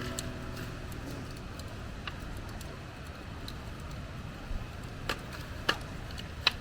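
Wood campfire crackling: a few sharp, irregular pops over a low, steady rumble.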